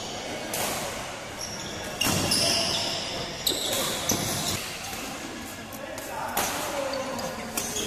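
Singles badminton rally: rackets striking the shuttlecock every second or two, with shoes squeaking on the court floor between the strikes.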